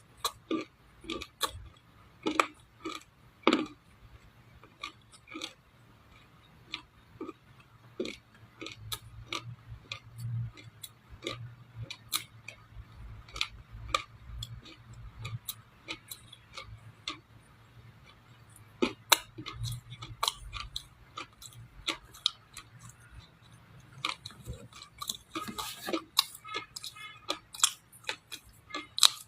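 Crunching and chewing of edible clay: irregular sharp crunches, a few each second, coming thicker near the end.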